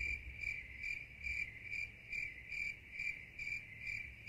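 Cricket chirping, an even chirp a little over twice a second, cut in abruptly in place of the table chatter and cut out just as suddenly. This is the stock crickets sound effect for an awkward silence.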